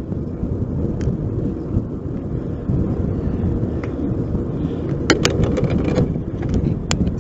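Wind buffeting the microphone of a bike-mounted action camera while cycling, heard as a steady low rumble mixed with road and tyre noise. A few sharp clicks or rattles come about five seconds in and again near the end.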